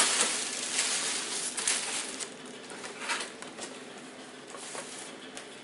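Tissue paper rustling and crinkling as it is pulled out of a paper gift bag, loudest in the first two seconds and trailing off into lighter handling noises.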